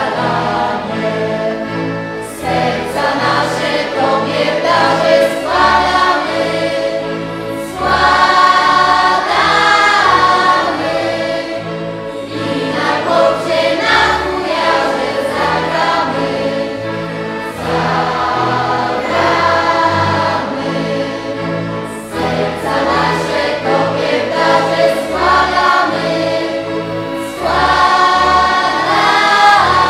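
Choir of a Polish regional folk ensemble singing a Christmas carol in several parts, over a low bass line that moves in held notes.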